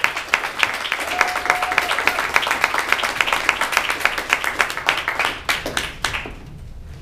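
A small audience applauding, a dense patter of hand claps that thins out and stops about six seconds in.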